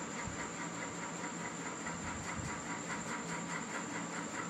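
Steady mechanical hum and hiss from a small running machine, with a constant high whine and a fast, even pulsing.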